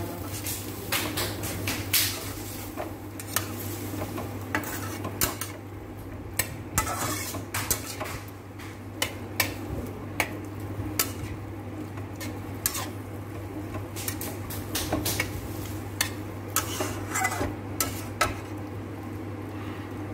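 A metal cooking utensil scrapes and clinks irregularly against a metal kadai as potatoes and cauliflower are stirred and fried, over a steady low hum.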